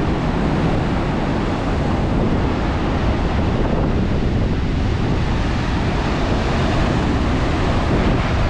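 Big-swell ocean surf, a steady loud rush of breaking waves, with wind buffeting the microphone.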